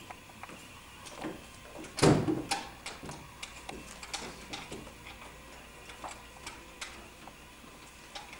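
Key working in a door lock: irregular metallic clicks and rattles of the lock and handle, with one louder bump about two seconds in.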